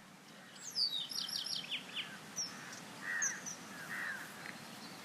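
Songbirds singing: a fast run of high notes falling in pitch about a second in, with short chirps repeating through the rest.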